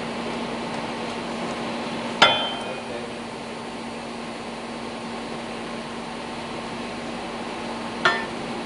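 Two sharp metallic clinks, each with a brief ring, about six seconds apart, the first the louder: metal knocking on the steel of the engine's chain tightener during hand work. Under them runs a steady hum.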